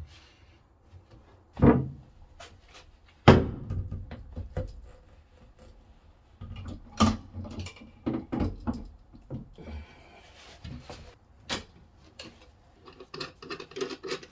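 Irregular knocks and clunks of hands and metal parts in an aluminium underfloor battery box as a heavy LFP battery pack in its steel clamp frame is fitted into place, the two loudest thuds in the first few seconds. A light metallic rattle of nuts on threaded rod near the end.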